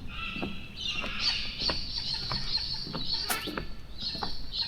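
Birds calling continuously in a dense chorus of high chatter, with a scatter of short sharp ticks underneath.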